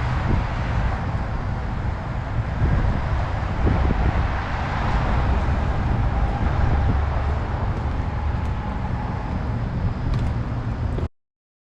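Steady low vehicle rumble with wind noise on the microphone, cutting off abruptly near the end.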